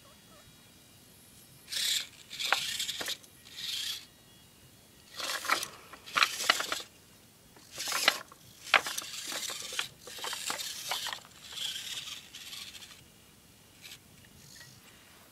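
Losi Micro Trail Trekker RC crawler driven in short bursts, its small electric motor and gears buzzing as its tyres scrabble and scrape over rocks, with sharp clicks of stone on stone.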